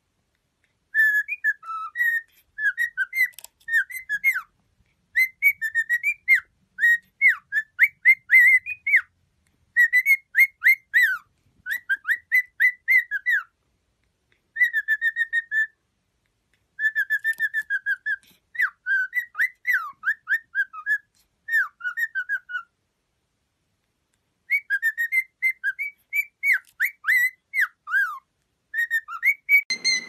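Cockatiel whistling its song: quick runs of chirped, rising and falling whistled notes in phrases of a few seconds, broken by short pauses, with a longer pause about two-thirds of the way through.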